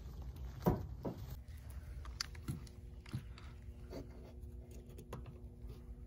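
Light clicks and taps of hand work on an opened outdoor HVAC unit, with a sharper knock about two thirds of a second in, over a low steady rumble. A faint steady hum comes in about a second and a half in.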